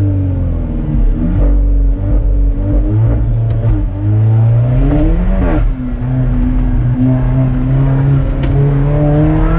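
Alfa Romeo 4C's turbocharged 1.75-litre four-cylinder engine under hard acceleration, heard from inside the cabin. The engine note climbs, then drops sharply at an upshift a little past halfway, and pulls on steadily after it.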